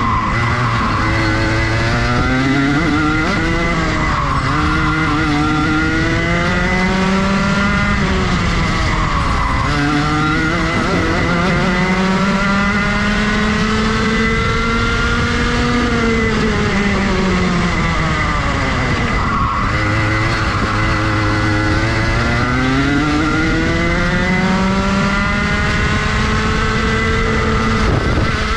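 Rotax Max Junior 125cc two-stroke kart engine at racing speed, the revs climbing hard and then dropping off about four times as it accelerates and lifts around the lap, with one long climb through the middle. A steady high whine runs underneath.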